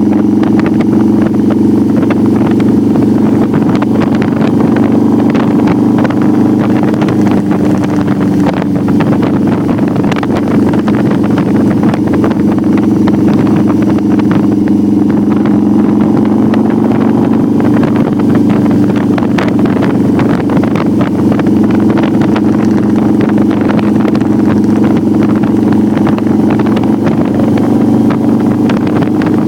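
Cruiser motorcycle engine running steadily at cruising speed, heard from the rider's seat, with wind buffeting the microphone.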